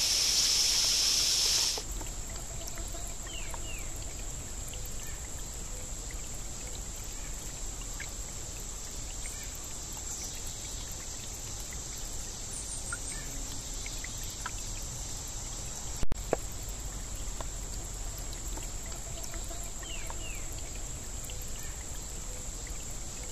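Quiet outdoor ambience: a faint steady hiss under a thin, steady high whine, with a few faint short bird chirps and a single sharp click about 16 seconds in. A louder rushing hiss fills the first two seconds and then cuts off suddenly.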